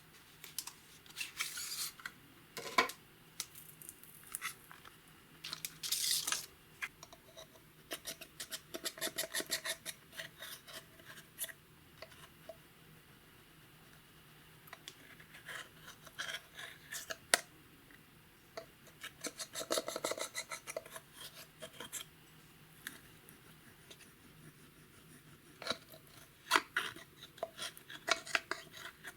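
Clear slime being worked with makeup and glitter: bursts of rapid crackling clicks and sticky scraping, a few seconds each, with short pauses between.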